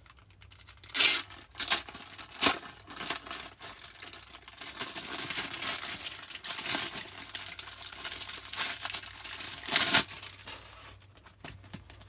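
Clear plastic packaging bag crinkling and tearing open as a silicone mat is pulled out of it. There are sharp loud rips about a second in and again near the end, with steady crackling between.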